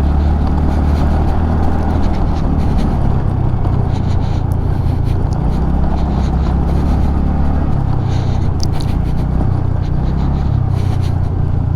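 Carburetted motorcycle engine running steadily under throttle while riding a rough off-road track, with a few brief clicks and knocks. Its pitch shifts slightly about two-thirds of the way in. The rider blames the bike's sluggish pick-up on a dirty carburettor and air filter.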